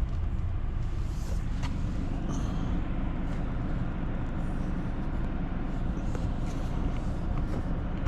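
Car engine idling, a steady low rumble heard from inside the car, with a few faint clicks.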